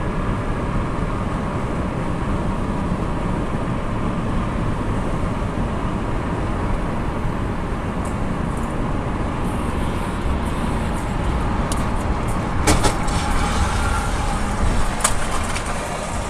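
Steady road noise from inside a car driving on a wet highway: tyre and wind noise, with a few sharp clicks in the second half.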